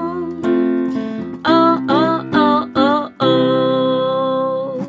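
A woman singing the closing phrases of a song over instrumental accompaniment: several short sung phrases, then a long final note held from about three seconds in and dying away.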